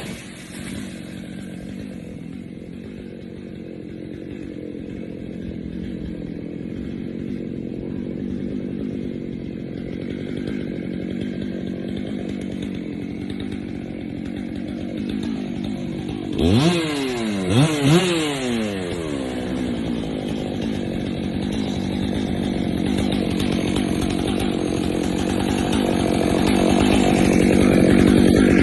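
Two-stroke chainsaw engine running steadily, revved sharply twice about two-thirds of the way through with the pitch climbing and falling back each time, then running on and growing louder near the end.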